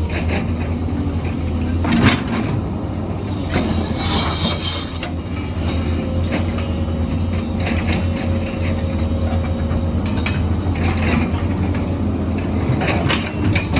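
Excavator's diesel engine running steadily, with scattered metallic clanks and a brief high scrape about four seconds in, as of steel working against rock.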